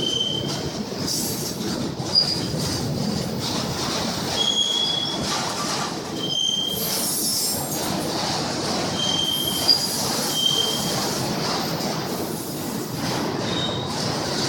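Train rolling by with a steady running noise and several short, high-pitched wheel squeals.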